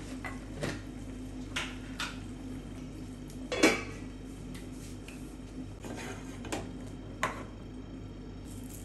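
Kitchen clatter: a metal utensil knocking against pots and pans about six times, the loudest knock about three and a half seconds in, over a steady low hum.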